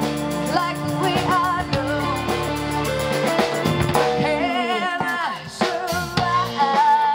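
Live rock band playing: a woman singing lead with vibrato over bass guitar, electric guitar and a drum kit.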